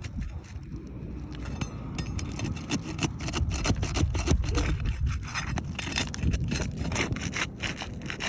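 Roof shingles scraping and rasping in quick repeated strokes as they are worked loose, getting busier about two seconds in.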